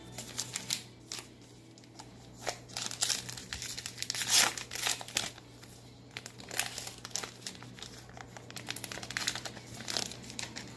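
Plastic baseball card pack wrapper crinkling as it is handled and pulled open, in irregular sharp crackles that are loudest about four seconds in.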